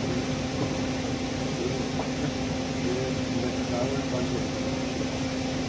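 Steady machine hum with a constant low tone, and faint voices in the background.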